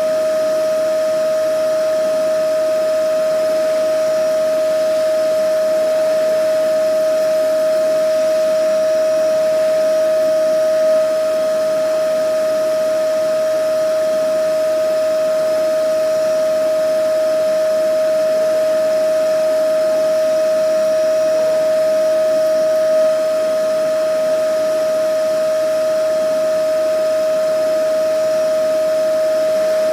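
Vacuum cleaner motor running continuously, a steady high whine over an even rushing hiss, with no change in speed.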